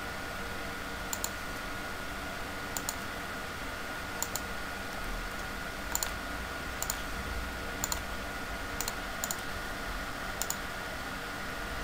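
Computer mouse buttons clicking: about nine irregularly spaced clicks, several in quick pairs, over a steady hiss with a faint high steady tone.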